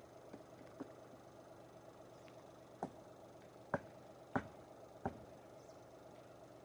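A few sharp knocks, four of them a little under a second apart in the middle stretch after two fainter ones, over a faint steady hum.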